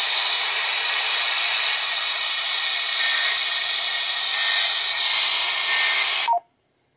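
Steady radio static hiss from a receiver between transmissions. It cuts off abruptly just over six seconds in with a short beep, leaving silence.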